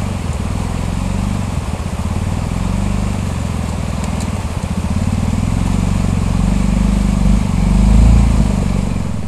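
ATV engine running steadily as the quad moves along a trail, swelling louder for a moment near the end.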